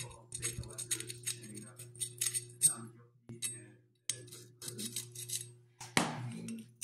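Small steel part being deburred by hand: a run of light scrapes and metallic clicks, then one louder knock about six seconds in as the work is set down on the bench.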